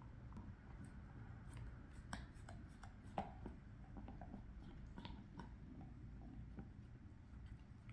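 A basset hound gnawing a dried beef cheek treat: faint, irregular crunches and clicks of teeth on the tough chew, with one sharper crack about three seconds in.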